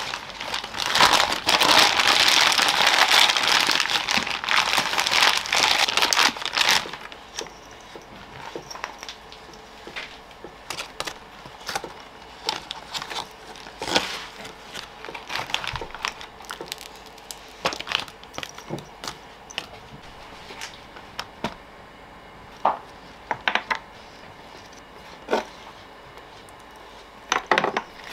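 Plastic bag crinkling loudly for several seconds as a block of clay is unwrapped. After that comes quieter handling of the clay: scattered small taps and knocks as it is cut and set on a plastic kitchen scale.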